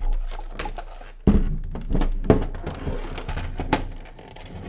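Knocks and clicks of a UPS case and its sealed lead-acid battery being handled as the battery is taken out of its compartment, with a sharp knock about a second in and another about two seconds in.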